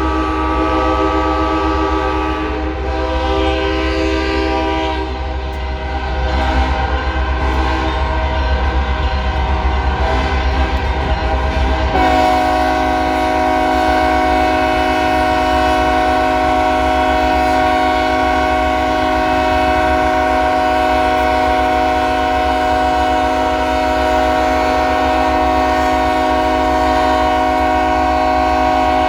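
Several locomotive air horns blowing at once in a rail yard, their overlapping chords shifting, then about twelve seconds in a single horn chord takes over and is held steadily. A low rumble runs underneath.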